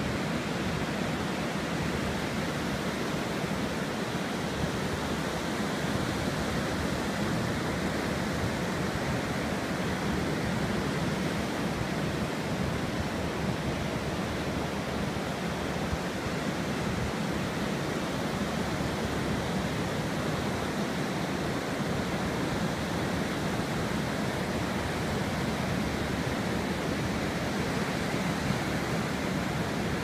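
Ocean surf breaking and washing up a sandy beach: a steady, unbroken rush of noise with no clear rise and fall of single waves.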